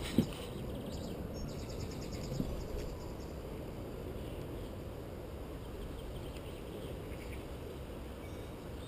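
Steady low rumble of outdoor background noise. A single sharp knock comes just after the start, and a brief run of fast, faint high ticks about a second and a half in.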